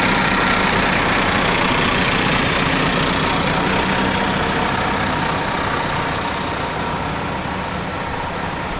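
A coach bus's diesel engine running as the coach moves slowly past at close range, slowly getting quieter.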